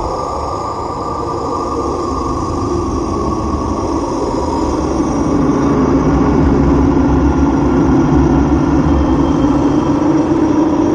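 Droning, rumbling intro of a death doom track: a low rumble under a held tone, slowly swelling in loudness before the band comes in.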